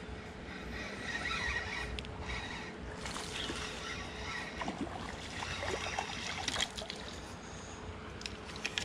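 Spinning reel being cranked to bring in a small smallmouth bass on the line, its gears whirring, with a few sharp clicks near the end.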